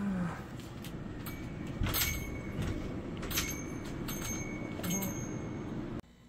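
Convenience-store background noise: a steady low rumble with scattered clicks and knocks and a few short high beeps. It cuts off to near silence about six seconds in.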